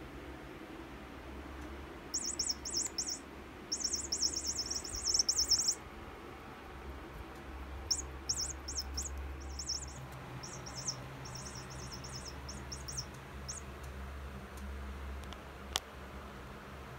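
Electronic toy mouse for cats chirping in rapid high-pitched trills, in two spells of bursts, followed near the end by a single sharp click.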